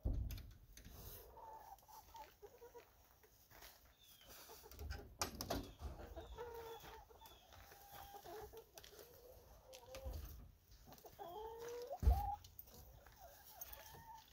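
Backyard hens clucking, a steady run of short, soft calls. A few low thumps come through, the loudest about twelve seconds in.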